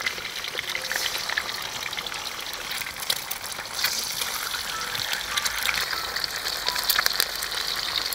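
Eggs frying in hot oil in a wok: a steady sizzle with frequent small crackles and spits.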